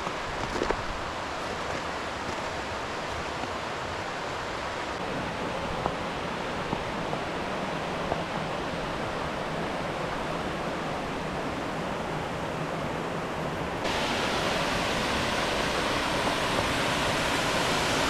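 Stinging Fork Falls and its creek: a steady rush of falling water, turning suddenly louder about fourteen seconds in, with a few light knocks in the first half.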